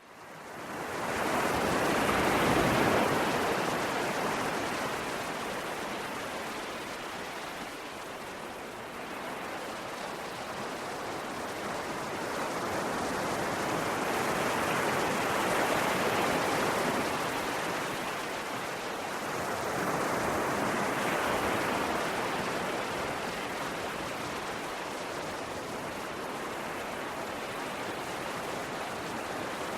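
Sea waves washing onto a shore: a steady rush that swells and ebbs slowly, with three big surges, the loudest just after the sound fades in from silence at the start.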